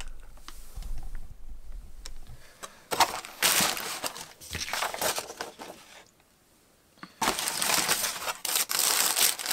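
Tissue and packing paper crinkling and rustling as it is handled in an open cardboard box, in two spells with a brief pause a little past halfway. A low rumble of the camera being moved comes first.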